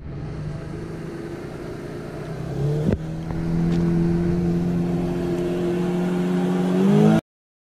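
Engine running steadily. Its pitch steps up about three seconds in, with a sharp click there, and climbs again just before the sound cuts off near the end.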